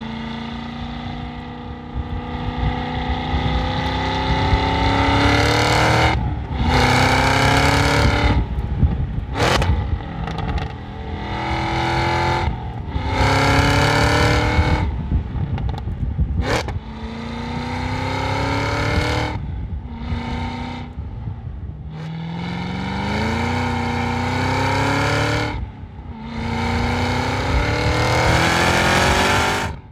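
Supercharged 6.2-litre V8 of a Cadillac CT5-V Blackwing accelerating hard, its exhaust note climbing in pitch over and over through a string of pulls. Each pull ends in a brief drop or break at a gear change or cut, with a couple of sharp cracks.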